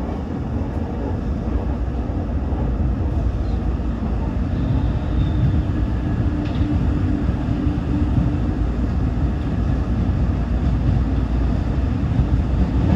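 Toyo Rapid Railway 2000 series electric train running, heard from inside: a steady rumble of wheels on rail, with a steady motor hum for several seconds in the first half.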